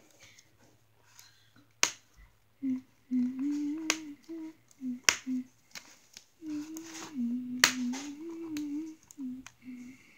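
A few sharp snips and clicks as doll packaging is cut open with scissors, with a child humming a wandering tune between them.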